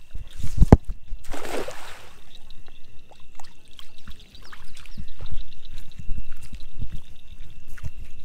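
A cast net hitting the water with a splash about a second and a half in, after a thump, then water trickling and dripping off the net as it is hauled back in.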